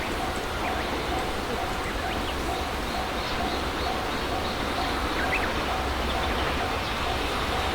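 Railway level-crossing warning bell ringing steadily, one tone repeating at about two strokes a second, with a few birds chirping faintly over a steady outdoor hiss.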